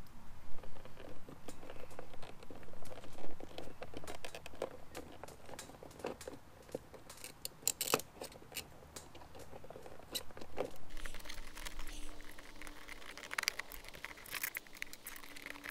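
Handling noise from stuffing electrical wires and plastic wire nuts into an outdoor electrical box: irregular clicks, taps and rustles, busiest in the first few seconds.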